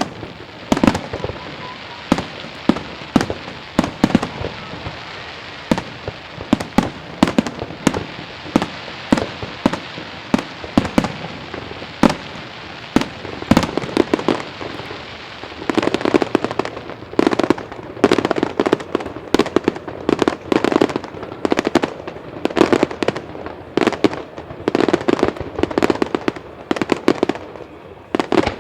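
Aerial firework shells bursting in quick succession, sharp bangs coming a second or less apart. About halfway through the bangs grow thicker and faster, as in a rapid volley.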